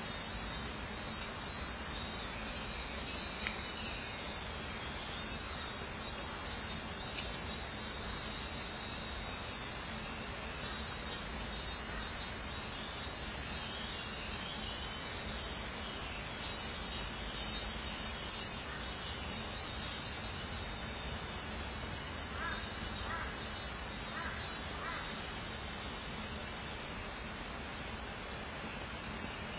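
Dense insect chorus: a loud, steady, high-pitched drone. A few faint short calls come through about three-quarters of the way in.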